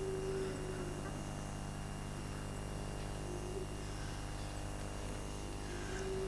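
Steady electrical mains hum and buzz, with no speech.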